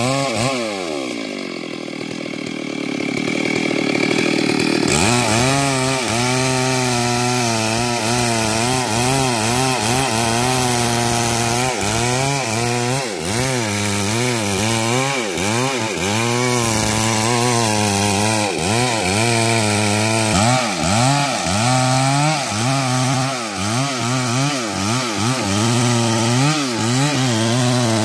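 Stihl MS 382 two-stroke chainsaw cutting through a mahogany trunk at full throttle, its pitch dipping and recovering again and again as the chain loads up in the cut. Right at the start the engine drops back to a lower speed for a few seconds, then revs up again about five seconds in, and it eases off again near the end.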